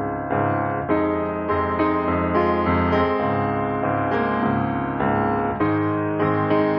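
Piano background music, with chords struck about once a second.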